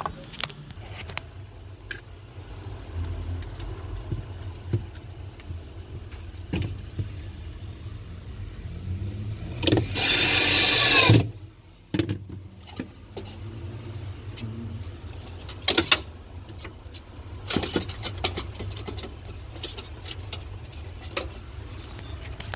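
Clicks and knocks of a replacement freezer fan motor being fitted and fastened into an LG French-door refrigerator, with one loud burst of noise lasting about a second near the middle.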